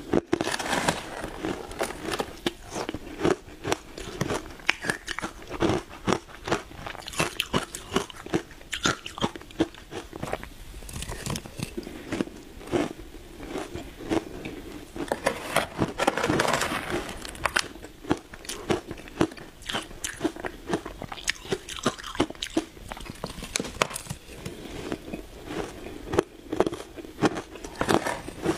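Shaved ice with a matcha topping being bitten and chewed: a dense, irregular run of sharp, crackling crunches as the ice breaks in the mouth.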